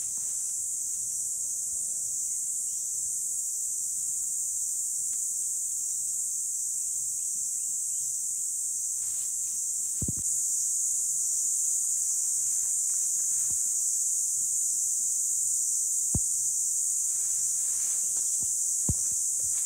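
Steady, loud, high-pitched drone of forest insects, with a few short low thumps about halfway through and again near the end.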